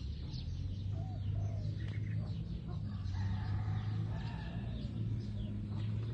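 Chickens and small birds calling in short chirps and clucks, over a steady low hum.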